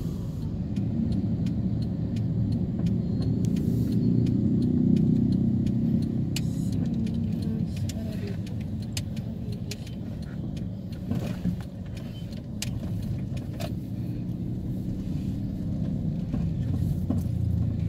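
Road and engine noise of a car driving slowly in traffic, heard from inside: a steady low rumble that swells about four to six seconds in, with scattered light clicks and rattles.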